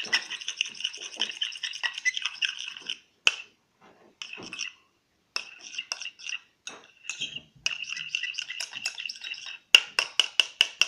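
Iron spoon stirring slime fast in a metallic bowl: a rapid scraping in spurts with short pauses, then a quick run of sharp taps of spoon against bowl near the end.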